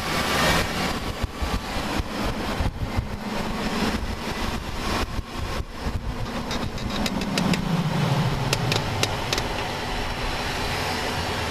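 2001 Chevy Impala in motion with sharp clicking from the left front wheel under braking. There is a run of crisp clicks and a low hum that falls in pitch about seven to eight seconds in.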